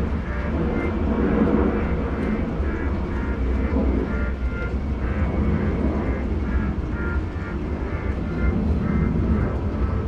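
A steady low rumble with a broad noisy haze over it and faint short higher tones that come and go.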